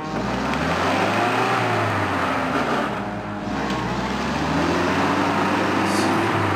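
UAZ off-road vehicle's engine running and revving, its pitch rising and falling repeatedly as it is driven over rough ground.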